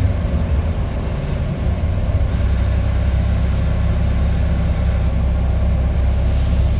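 Volvo B10TL bus's diesel engine running with a steady low drone, heard from inside the passenger saloon. A short hiss of air comes near the end.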